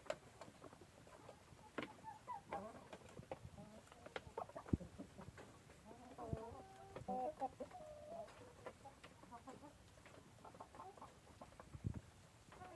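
Giant chickens clucking softly on and off, with scattered sharp clicks and knocks around them; the loudest knock comes about a third of the way in.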